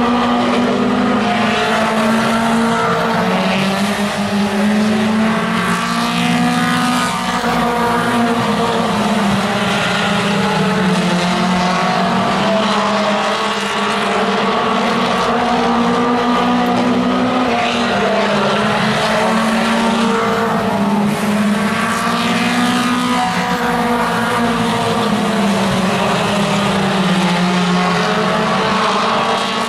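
Several mini stock race cars' four-cylinder engines running hard around an oval track, their pitch rising and falling as they lift for the turns and pass by.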